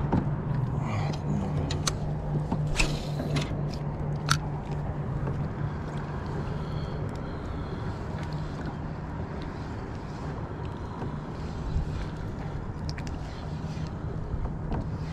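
Spinning rod cast and lure retrieved from a kayak, with a few sharp clicks from the rod and reel in the first few seconds, over a steady low hum and the wash of water and wind.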